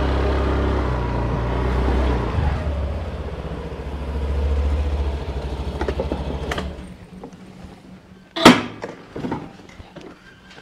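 A motor vehicle's engine running with a low, pulsing rumble, dying away about seven seconds in. A single sharp knock follows, the loudest sound, then a few light clicks.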